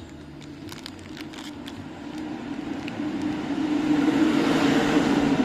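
A motor vehicle passing by, its engine and road noise growing steadily louder to a peak near the end and then starting to fade.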